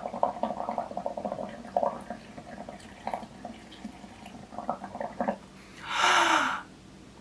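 Air blown through a paper straw into soapy water in a glass: an irregular bubbling gurgle as foam builds up. About six seconds in comes a loud breath, lasting under a second, which is the loudest sound.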